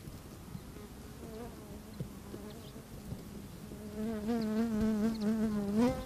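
A flying insect buzzing: a wavering drone, faint at first and much louder from about four seconds in, which rises in pitch and cuts off suddenly near the end.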